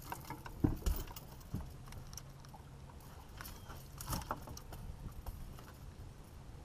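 A landing net and a big flathead catfish being handled on a boat deck: scattered knocks and rattles, loudest about a second in and again about four seconds in, with a steady low hum under the first four seconds.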